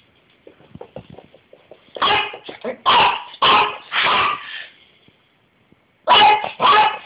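Elderly Yorkshire Terrier barking: four short barks in quick succession starting about two seconds in, then two more near the end.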